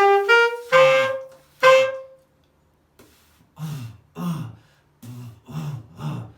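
Saxophone growl demonstration: two short clean notes rising a step, then two louder notes with a low buzz under them, the player's voice sounding in the throat while he blows. Then four short, low, rough throat sounds, each falling in pitch.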